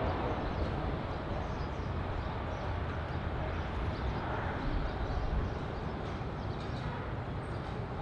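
Boeing 787-8 Dreamliner's jet engines heard at a distance, a steady deep rumble and roar as the airliner rolls along the runway, easing slightly near the end.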